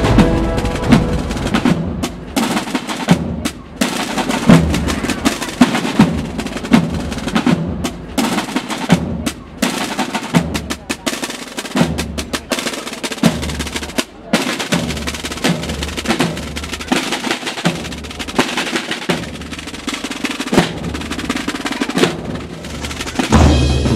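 Soundtrack music driven by drums and percussion, with fast snare-like hits and a beat of low drum thumps.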